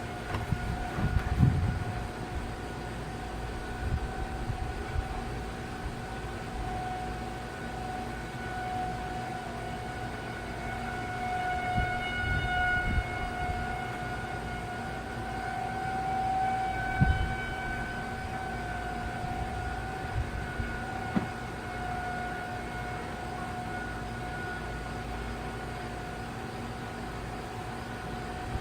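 Federal Signal 2001 electromechanical siren sounding one steady tone during a test, swelling slightly in loudness around the middle. A few low thumps are heard near the start and again at about 4, 13 and 17 seconds.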